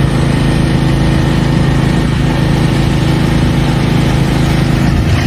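An engine running steadily at a constant speed, with an even, unchanging drone.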